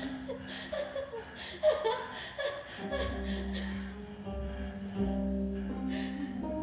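Music with sustained low notes and steady held tones, with short vocal sounds over it in the first half.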